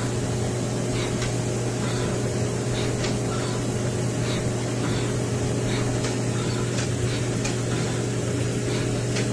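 Citizen Miyano BNA-42S2 CNC lathe running with a steady machine hum and hiss as it rapid-traverses, with faint irregular ticks every second or two.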